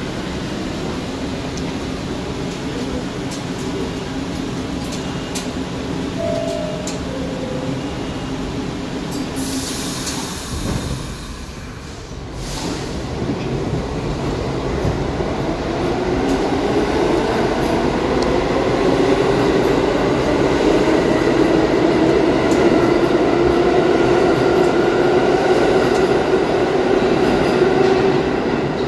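New York City subway train, R62A cars, at a station platform: a falling two-note door chime about six seconds in, a sharp air hiss about ten seconds in, then the train pulls out with a motor whine that rises in pitch and grows louder as it accelerates.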